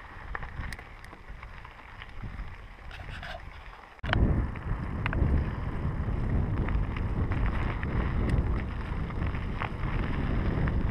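Scott Scale 970 mountain bike riding, its tyres rolling over broken asphalt and then a dirt road, with short clicks and rattles from the bike and wind rumbling on the microphone. The noise gets suddenly louder about four seconds in, where the surface changes to dirt.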